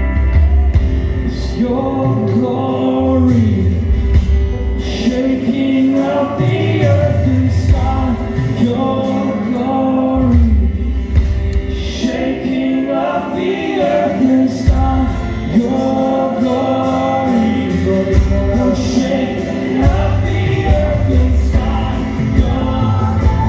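Christian worship song: voices singing a melody over a steady instrumental accompaniment with a pulsing bass.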